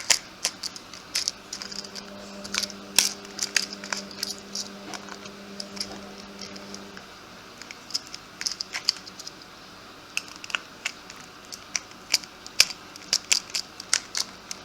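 A cross-head screwdriver scraping and clicking in the screws of a plastic toy train engine, with small handling knocks of the toy. A low steady hum sounds from about two seconds in until about seven.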